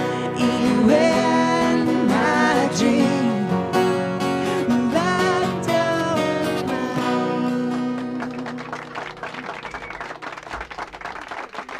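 Two acoustic guitars strummed under held, wordless sung notes from two voices. About eight seconds in the singing stops and the sound turns quieter and noisier.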